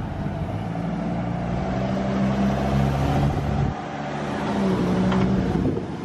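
Road vehicles' engines running close by, among them a pickup truck's. One steady engine note drops away a little after halfway, then a second engine builds up and fades near the end.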